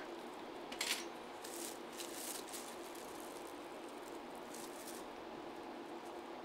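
Soft handling noises: a few light rustles and taps as gloved hands work over plastic wrap and paper in the first couple of seconds, then only a steady faint room hiss.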